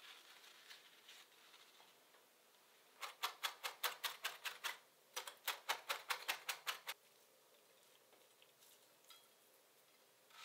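Kitchen knife chopping parsley on a wooden cutting board: two runs of quick, even taps, about six or seven a second, each lasting just under two seconds with a short pause between.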